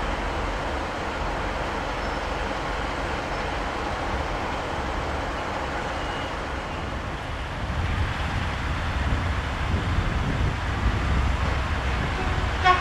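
TFC DH2 diesel railcar idling at the platform, a steady mechanical hum with a low rumble that grows louder after about eight seconds. A short, loud pitched sound comes right at the end.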